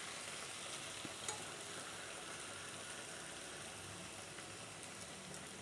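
Batter-coated nendran banana deep-frying in hot oil in an aluminium kadai: a steady sizzle of bubbling oil, with one light tap just over a second in.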